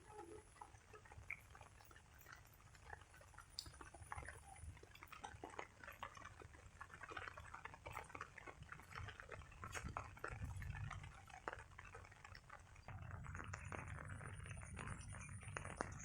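Rain dripping and pattering: many small irregular drop ticks. About thirteen seconds in, a steadier, louder hiss joins.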